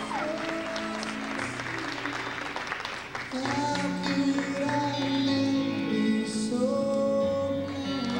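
Posing music with long held notes over a bass line, with audience applause during the first three seconds.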